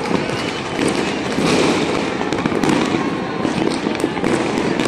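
Many fireworks and firecrackers going off at once across a city: a dense, continuous crackle and rumble with frequent sharper bangs scattered throughout.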